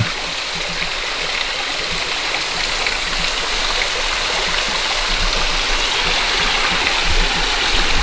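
A small waterfall at low flow, thin trickles of water pouring off a rock ledge and splashing into a shallow pool, giving a steady hiss of falling water.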